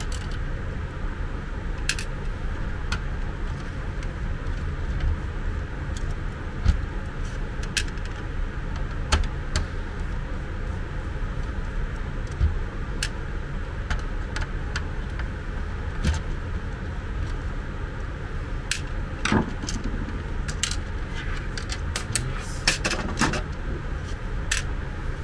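Small clicks and light knocks of a screwdriver working the screws of a portable suction aspirator's plastic housing, and of the plastic parts being handled, over a steady low hum. The clicks come more often in the last few seconds.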